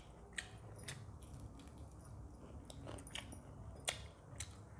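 Close-up eating sounds: chewing with short, sharp wet clicks and smacks, the loudest a little under four seconds in, while fingers mix rice and chicken curry on a metal plate.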